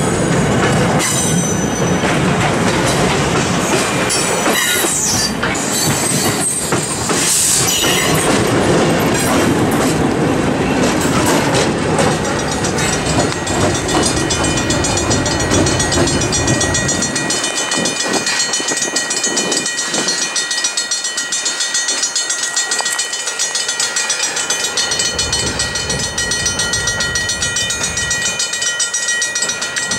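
Passenger coaches rolling past with wheel clatter and brief squeals from the wheels, then the Alco C-424 diesel locomotive, a V16 road-switcher, passing and running away. Its rumble fades about halfway through, and steady high ringing tones carry on to the end.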